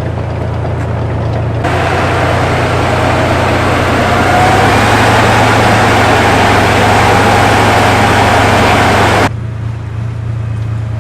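T-72 tank's V-12 diesel engine running with a steady low drone. From about two seconds in, a much louder, harsher stretch of engine noise with a faint whine comes in; it cuts off abruptly about nine seconds in, leaving the low drone.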